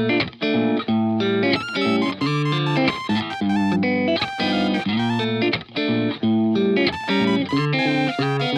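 Background music led by plucked guitar, in a steady flow of short notes.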